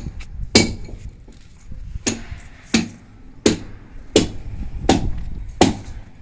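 Hammer blows struck at a steady pace, about one every 0.7 s, each with a short ring.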